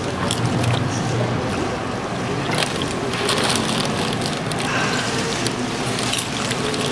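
Steady auditorium noise with scattered clicks and knocks, the kind heard while a set is changed behind a closed stage curtain.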